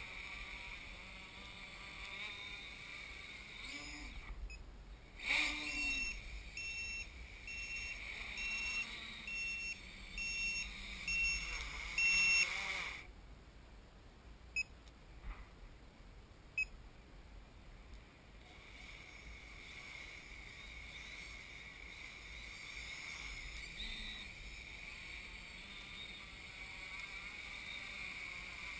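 HK X666 quadcopter's four brushless motors and propellers running with a steady whine, which drops away about four seconds in. A string of electronic beeps from the quad follows, about one a second for some seven seconds, then a quieter stretch with a few sharp clicks, and about eighteen seconds in the motors spin up and the whine returns.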